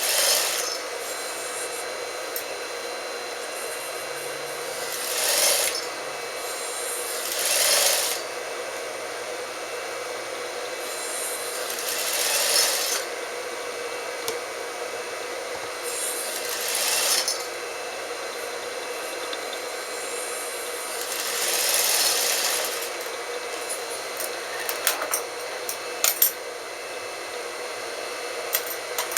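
Industrial sewing machine double-stitching a trouser seat seam in short runs of about a second each, over a steady motor hum, with a few light clicks near the end.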